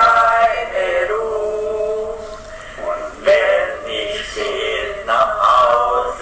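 A family singing a song together, a man's voice among them, with long held notes.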